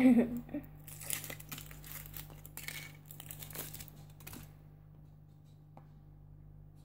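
Foil wrapper of a Kinder Surprise chocolate egg crinkling and tearing as it is peeled off and handled, in irregular crackly bursts for about three and a half seconds before stopping.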